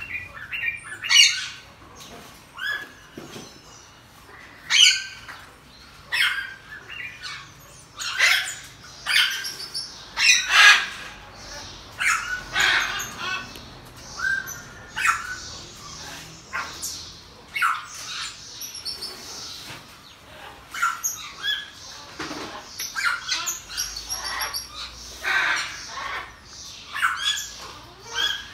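Pygmy marmosets calling: short, high-pitched squeaky calls repeated every second or two, some rising or falling in pitch.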